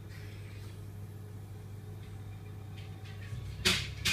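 Steady low electrical hum of reef-aquarium pumps, with two sharp knocks in the last half second.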